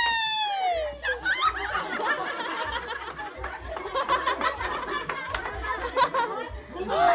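A woman's high-pitched laugh falling away within the first second, then a group of people chattering and laughing.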